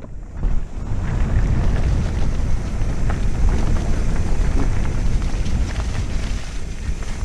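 Mountain bike riding fast down a dirt trail: wind buffets the action camera's microphone in a steady low rumble, with tyre noise and scattered clicks and rattles from the bike over bumps.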